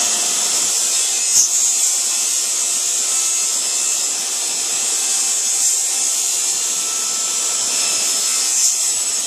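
Table saw running steadily while a sheet-stock panel is pushed through the blade along the fence.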